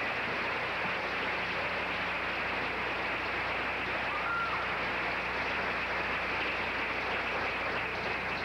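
Audience applauding steadily, with a low electrical hum underneath.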